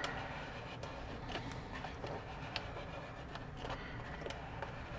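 Faint light clicks and scrapes of fingers working a plastic gauge needle up off its stepper-motor shaft on a truck instrument cluster, over a low steady hum.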